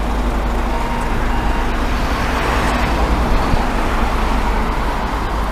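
A panel van driving slowly past close by: steady engine and road noise with a low rumble.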